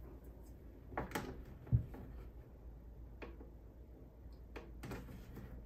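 Scattered small plastic clicks and taps as a plastic hose clip is fitted onto the edge of an xTool M1 laser machine's enclosure, with one dull thump a little under two seconds in.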